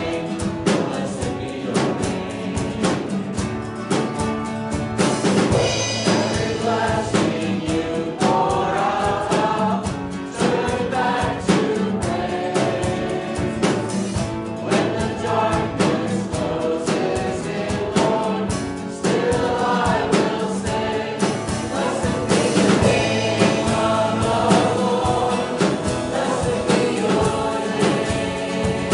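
Congregational worship singing: many voices singing a worship song together over instrumental accompaniment with a steady beat.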